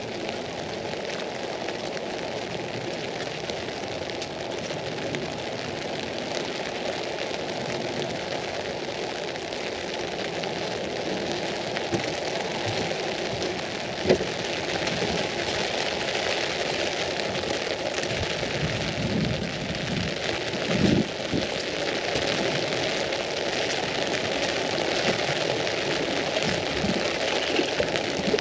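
Rain falling on an umbrella, a steady hiss, with a sharp knock about halfway through and a short louder burst about two-thirds in.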